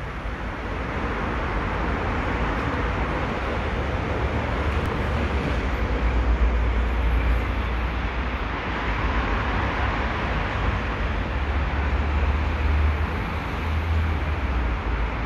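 Passenger train starting off and pulling out, a steady loud running noise over a deep low rumble.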